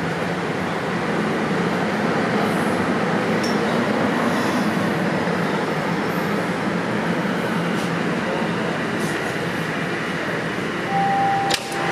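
Toronto TTC Line 1 subway train running into a station: a steady rushing rumble of wheels and motors. Near the end come a short steady tone and a sharp click.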